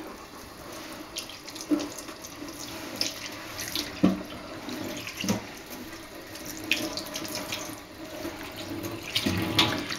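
Kitchen tap running over a salt-cured salmon fillet held under the stream, water splashing off the fish and hands into a stainless steel sink as the leftover salt is rinsed off. Steady running water with irregular louder splashes as the fillet is turned.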